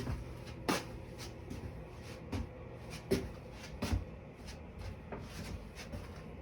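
Scattered light knocks and clicks, a few loud ones among quieter taps, of hands working and handling things in a small room.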